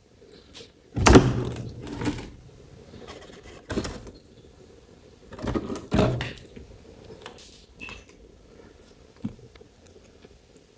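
A series of irregular knocks and clunks, the loudest about a second in and again around six seconds in, with quieter taps between.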